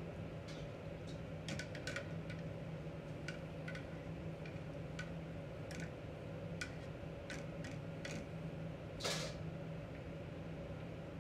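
Light, irregular clicks and ticks of kitchen work over a steady mechanical hum, with one short hiss about nine seconds in.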